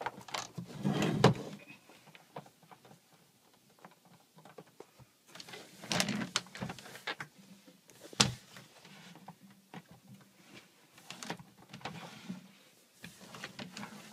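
Scattered knocks, clunks and scrapes from handling a water ionizer unit as it is stood upright, with the sharpest knocks about a second in and about eight seconds in.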